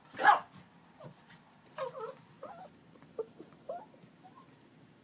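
A dog gives one loud bark just after the start, then a series of shorter, quieter whines and yips: excited, roused by the cue 'Who is it?'.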